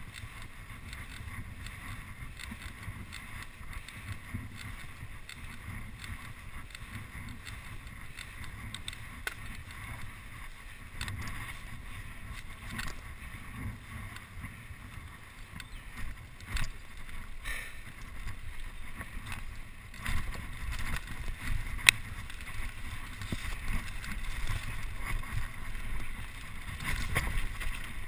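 Mountain bike riding downhill: wind rushing over the microphone and tyres rolling on tarmac, with scattered clicks and rattles from the bike. From about twenty seconds in the rumble grows heavier, with sharper knocks as the bike hits rougher ground.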